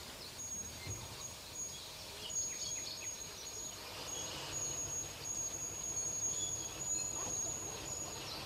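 Birds chirping and calling over outdoor background noise, with a thin, high, steady tone that breaks off and returns several times.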